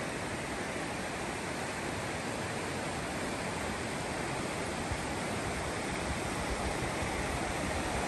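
Shallow, rocky mountain creek flowing over riffles: a steady rushing of water that grows slightly louder over the last few seconds.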